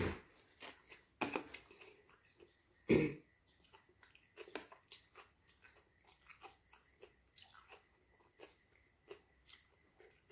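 A person chewing and crunching a Thai beef salad close to the microphone, with small clicks of a metal fork picking through a plastic container. There is one louder knock about three seconds in.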